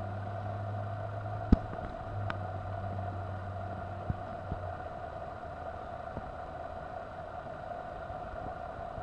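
Steady low engine-like hum that stops about five seconds in, over a constant steady mid-pitched tone, with one sharp click about a second and a half in and a few faint ticks after it.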